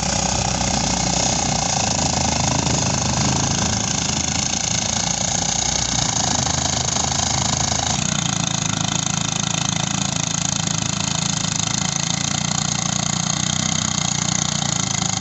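Engine-driven rice threshing machine running steadily, with a change in its tone about eight seconds in.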